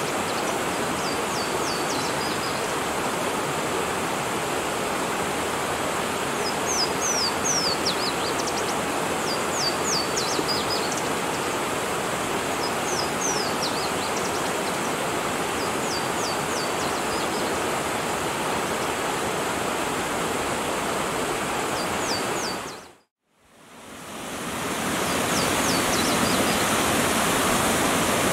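Rushing brook with a Louisiana waterthrush singing over it: several short songs of a few clear, steeply down-slurred whistles, repeated every few seconds. The sound drops out for a moment about three-quarters of the way through, and the brook comes back louder.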